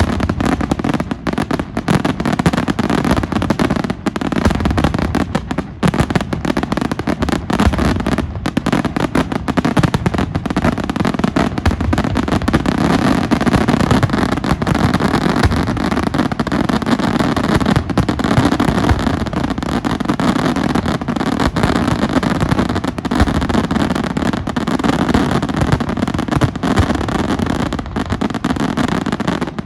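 Pirotecnica Senatore fireworks display going off in a dense, continuous barrage of bangs and crackling, with no let-up.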